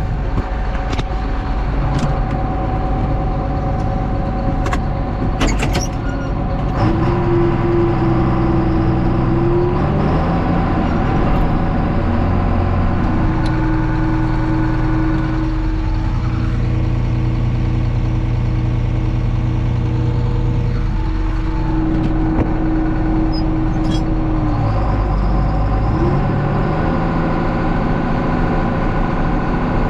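Combine harvester engine running steadily, with a high steady whine that comes in about seven seconds in, breaks off, then returns for around ten seconds. A few sharp clicks in the first six seconds.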